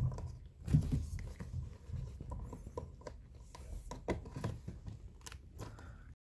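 Handling noises of plastic parts and cable as a massage chair armrest's power cord connector is fitted: irregular clicks, knocks and scrapes, with a sharper knock about a second in.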